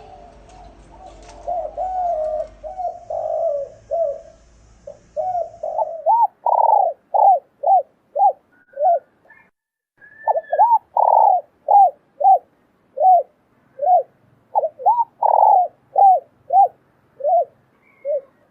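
Male and female spotted doves giving excited cooing. At first the coos are softer and run together over a low background hum. From about six seconds there is a clear run of short, arched coos, about two a second, in three bursts with brief pauses between.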